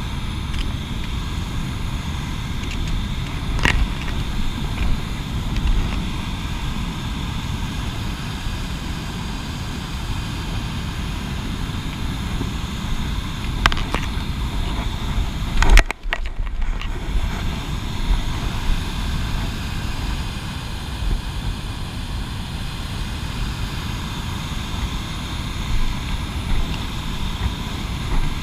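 Steady rushing of whitewater rapids and a waterfall close by, heavy in the low end. A few sharp clicks come through it, and the sound drops out briefly just past halfway.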